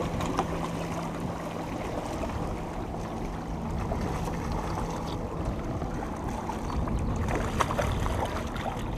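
Wind on the microphone and lake water slapping against the side of a small boat. A low steady hum fades out about halfway, and a few sharp clicks come near the end.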